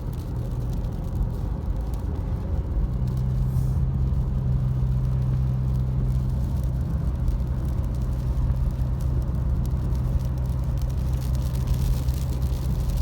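Car driving on a road, heard from inside the cabin: a steady low engine and road drone, with a steady low hum coming in about three seconds in.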